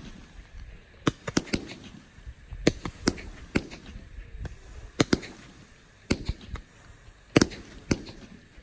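Fireworks going off: a string of sharp bangs at irregular intervals, about a dozen, several coming in quick pairs, with low rumbling trailing between them.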